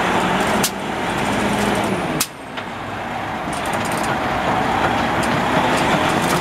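Semi truck's diesel engine running hard under load as it tries to pull its stuck trailer loose. The engine drops off sharply twice, once about a second in and again a little after two seconds, then builds back up to a steady drone.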